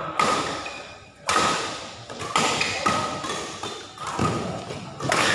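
Badminton rackets striking the shuttlecock in a doubles rally: sharp hits about once a second, each echoing through the large hall.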